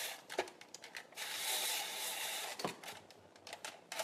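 Spiralizer blade shaving a peeled turnip into thin noodles: a knock, then a rasping scrape lasting about a second and a half, ending with another knock.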